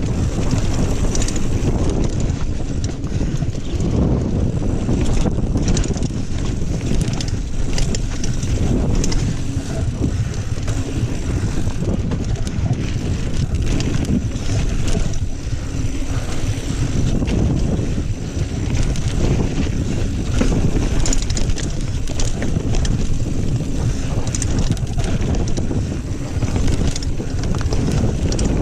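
Kona Honzo ST hardtail mountain bike ridden along dirt singletrack: wind rushing over the action camera's microphone, tyres running on dirt, and the bike clattering and rattling over rough ground throughout.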